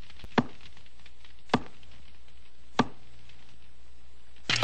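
Three sharp knocks of a wooden stick tapped on wooden floorboards, evenly spaced about a second and a quarter apart, walking it toward a set steel leg-hold trap. A loud burst starts right at the very end.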